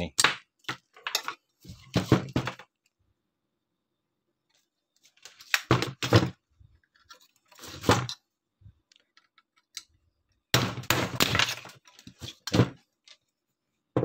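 Hammer striking a nail set against the pressed-in fasteners of a washing-machine spin-dryer motor's end cover, knocking them out to open the housing. Sharp metallic taps come in several short clusters with pauses between them.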